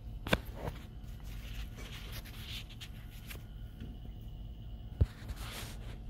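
Handling noise from a multimeter and thermocouple probe held against a water pipe: faint rustling and two sharp knocks, one just after the start and one near the end, over a steady low hum.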